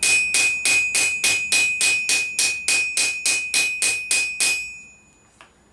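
Flat-faced hammer striking a rivet on an anvil in quick, even blows, about five a second, peening the rivet head over to join two metal plates. The anvil rings with a steady high tone under the blows. The blows stop about a second before the end and the ring dies away.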